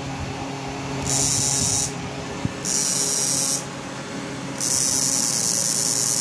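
Electric fishing machine (a 58000 W electrofishing inverter) running on test, giving a high hissing whine that cuts in and out in pulses of just under a second, three times, then stays on steadily from about three quarters of the way in. A faint low hum runs underneath.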